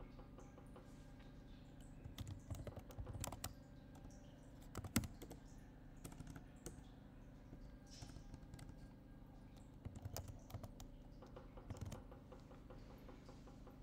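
Computer keyboard typing in a few short bursts of key clicks, with one sharper click about five seconds in. A faint steady hum runs underneath.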